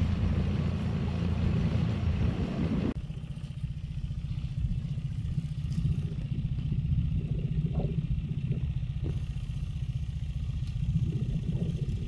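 Small boat's motor running with a steady low rumble. For the first three seconds a hiss of wind and water lies over it, then cuts off abruptly.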